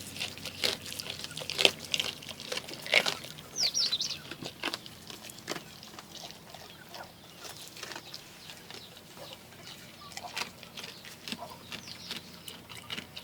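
A goat chewing and crunching fish: irregular sharp crunches and clicks, thicker in the first few seconds and sparser after. A short high bird chirp about four seconds in.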